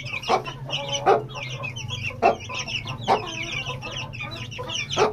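Young Aseel chicks, about 19 days old, peeping continuously in quick high chirps while feeding, with about five short knocks at irregular intervals.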